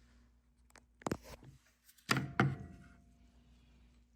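Hard objects knocking on the vacuum hold-down plate with its vacuum pump switched off: a sharp knock about a second in, then two heavier thunks just after two seconds, the first ringing briefly.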